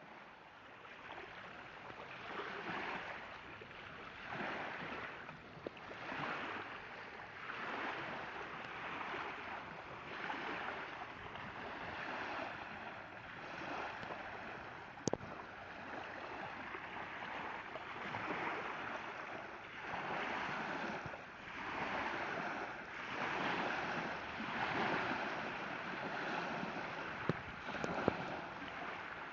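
Water lapping and splashing in regular swells about every two seconds, with a sharp click about halfway through.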